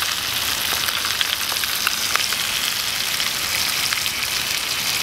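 Trout fillets frying in butter in a pan: a steady sizzle with scattered small pops and crackles.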